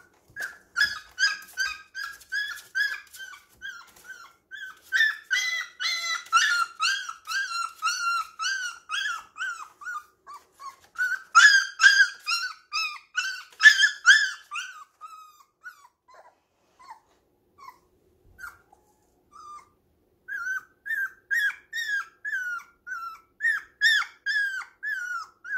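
Young puppy whining: a string of short, high, rising-and-falling cries, about two or three a second. The cries thin to a few scattered ones past the middle and come thick again near the end.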